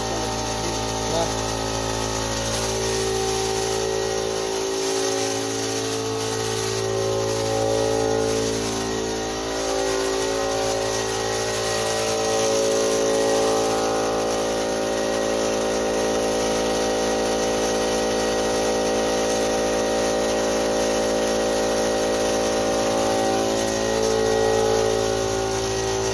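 Portable electric air compressor (a yellow Polten) running steadily: a low hum with a cluster of wavering steady tones over an even hiss.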